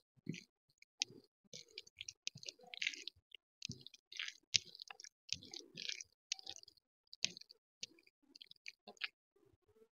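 Fingers mixing rice with dal and crispy fried potato shreds on a steel plate: a quiet, irregular run of wet squishes and crackling clicks.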